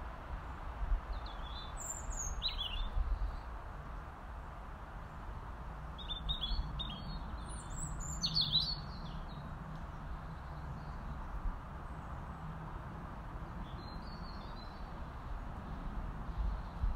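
Robin calling: three short phrases of high, thin, quick notes, the middle one the longest and the last one faint, over steady low background noise.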